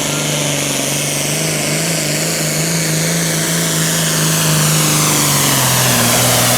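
Modified diesel farm tractor engine running at full throttle under load during a 10,000 lb Super Farm tractor pull. The engine note is loud and steady, with a high whine on top, and steps down slightly in pitch near the end.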